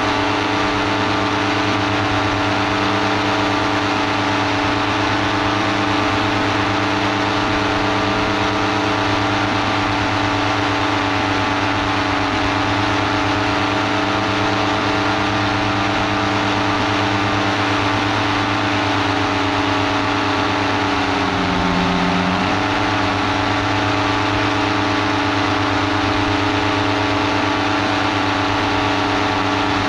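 Paramotor engine running steadily in flight, its propeller drone holding one pitch except for a brief dip about two-thirds of the way through before it picks back up.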